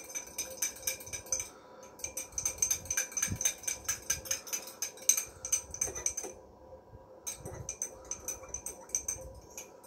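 Metal spoon stirring water in a drinking glass, clinking rapidly against the glass wall, with two short pauses.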